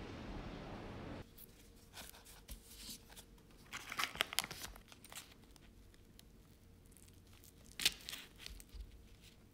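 Paper wrapper of a block of Bordier butter crinkling as it is handled and folded open, in short rustling bursts, loudest about four seconds in and again near eight seconds. It is preceded by about a second of steady outdoor background noise.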